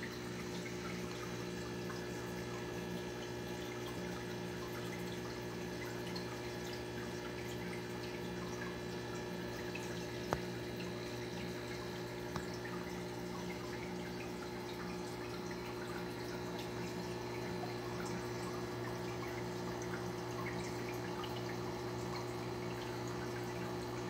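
Aquarium water bubbling and trickling from the filter and air bubbles, with a steady hum underneath. Two brief ticks sound about ten and twelve seconds in.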